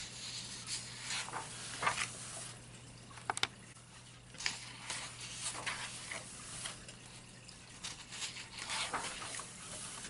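Pages of a paperback coloring book being turned and smoothed flat by hand: paper rustling and swishing, with several short, crisp flicks as pages are lifted and let fall.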